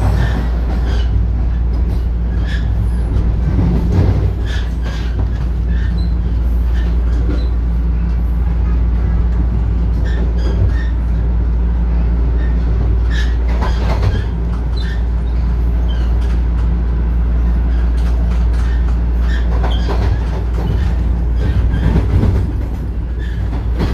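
TTC Line 1 Toronto Rocket subway train running at speed, heard from inside the car: a steady low hum from the motors and wheels on the rails, with scattered clicks and knocks.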